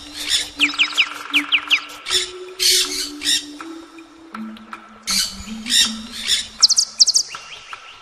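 Birdsong track: short runs of quick, high, falling chirps alternate with harsh squawking calls, over a soft, low instrumental melody.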